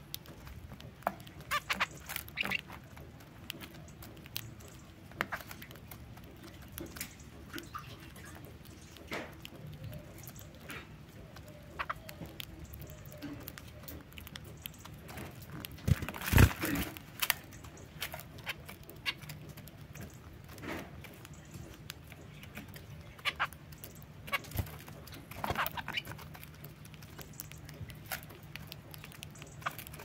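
Zebra finches pecking and husking seed in a seed tray: irregular short clicks and rustles of beaks and seed, with a louder flurry about halfway through.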